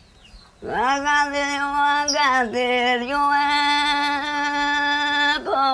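An elderly woman wailing a mourning lament: the crying call with which a female relative announces a death through the streets. It comes as long, high, held notes at a steady pitch, breaking briefly about two and a half seconds in and again near the end.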